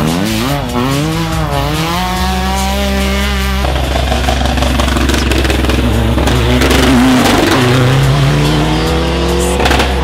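Rally car engines revving hard on a tarmac stage. The pitch swings up and down through gear changes and braking in a bend, then climbs steadily as another car accelerates toward the end.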